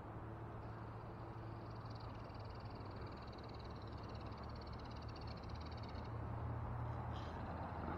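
Steady rush of river water with a low hum underneath. Over it runs a faint, fast-ticking high whirr from a spinning reel being wound in as a lure is retrieved; it stops about six seconds in.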